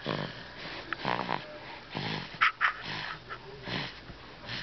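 A baby fussing: a series of short whimpering cries spread through a few seconds, with one sharper, louder sound about two and a half seconds in.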